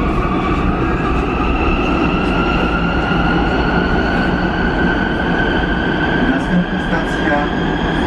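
Metro train running between stations, heard from inside the car: a steady rumble under a whine that rises slowly in pitch as the train speeds up.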